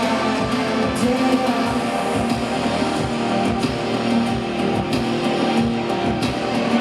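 Live band music: an instrumental passage with guitar over a steady drum beat.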